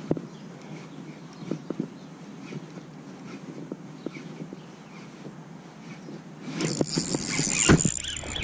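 Quiet outdoor background with scattered faint clicks while a spinning reel is wound in. About six and a half seconds in, loud rustling handling noise starts, with a steady hiss, and a sharp knock comes near the end as the rod and arm are swung about.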